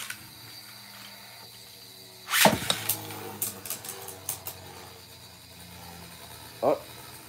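Beyblade Burst tops spinning in a plastic stadium with a steady whir. About two and a half seconds in, a second top is launched with a sharp rip from the launcher, and the tops then clack against each other in a quick run of clicks.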